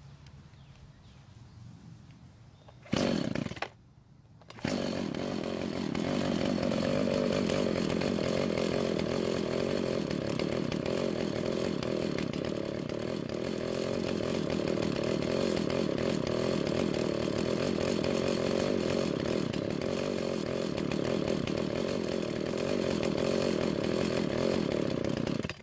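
Husqvarna 142 chainsaw's two-stroke engine: a short burst about three seconds in, then it starts and runs steadily at idle, its speed sagging a little at first, before cutting off. The idle speed has been raised slightly, but it still sounds no better and will not stay running, which the mechanic takes as a sign that it needs more fuel at idle.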